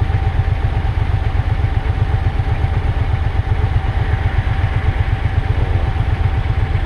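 Motorcycle engine running at low revs near idle, a fast, even low exhaust pulse, with a thin steady whine above it.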